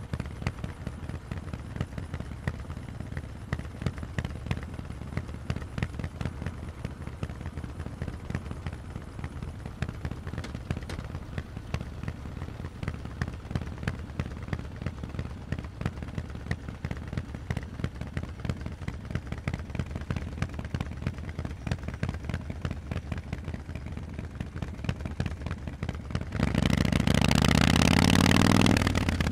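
Harley-Davidson Forty-Eight's air-cooled V-twin idling through Vance & Hines exhausts with an uneven, choppy beat. About three seconds before the end it is revved hard and the pitch climbs as the bike accelerates, then dips briefly at the very end.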